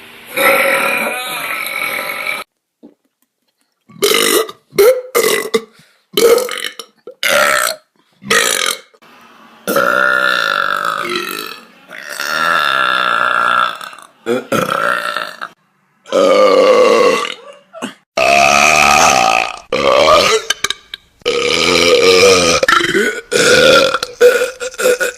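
A string of loud, deep burps on command, about a dozen of them: several short quick belches, then long drawn-out ones lasting a second or two each.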